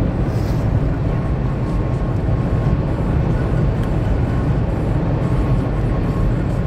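Steady road and engine noise inside a car's cabin at motorway speed: a low, even rumble.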